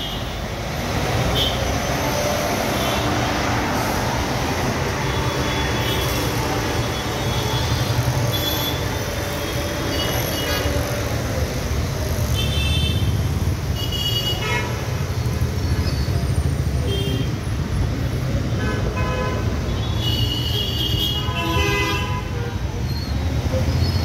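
Busy road traffic with a steady engine and tyre rumble. Vehicle horns toot again and again, in short bursts, with a cluster of honks near the end.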